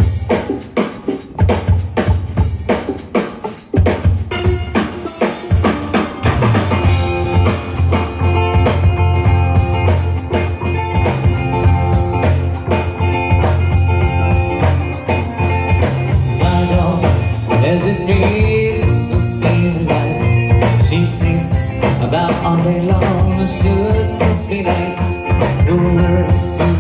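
Live tropical rock band playing a song's instrumental intro: drums lead off with sharp hits, and about six seconds in steel pan, electric guitar and bass guitar join in over the drum kit.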